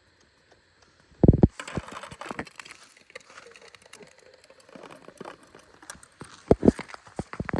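Crunching footsteps on crusty snow and ice: an irregular run of crackling steps and knocks after a silent first second, with heavy thumps about a second in and twice near the end.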